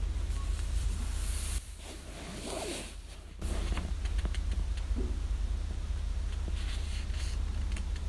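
Paper pages of a hardcover book being turned by hand: a soft rustle about one and a half seconds in and another about six and a half seconds in. A steady low rumble runs underneath.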